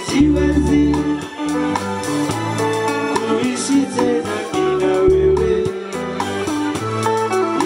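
Live band playing a Swahili dance song: several men singing in unison over a moving bass line, guitar and drums, with saxophone and trumpet.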